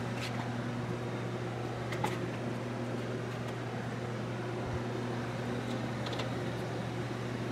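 Steady low hum with a faint hiss, like workshop room tone from a fan or electrical hum. A couple of faint light taps come about two seconds in and again near six seconds, where a paintbrush is worked against a paint palette.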